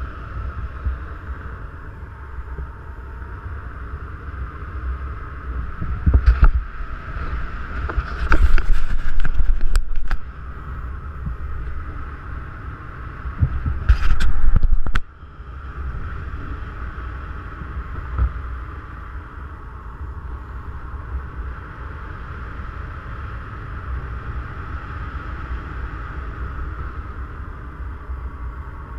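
Airflow rushing over the camera microphone in paraglider flight, a steady low wind rumble with louder buffeting gusts about six seconds in, from about eight to ten seconds, and again around fourteen seconds.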